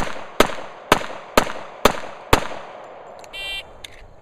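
Pistol fired six times in quick succession, about two shots a second, each shot ringing out briefly. An electronic beep follows about a second after the last shot.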